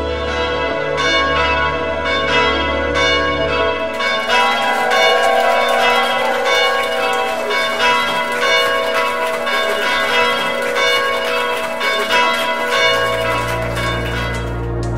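Church bells ringing in quick, overlapping strikes, densest from about four seconds in, over a low steady hum at the start and again near the end.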